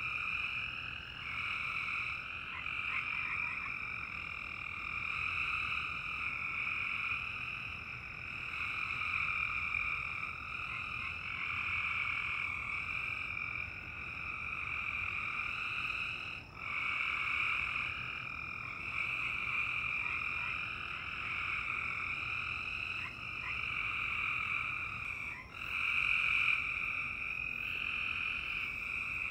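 A dense chorus of frogs calling without pause, swelling and easing every few seconds.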